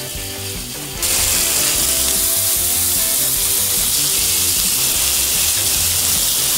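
Flat iron steaks (punta de paleta) sizzling on a hot parrilla grill over coals as they are turned; the sizzle jumps sharply louder about a second in and then holds steady, with background music under it.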